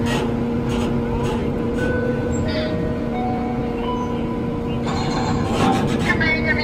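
Steady low machinery drone with a constant hum from a docked roll-on/roll-off ferry with its bow ramp down. Louder noise and voices come in near the end.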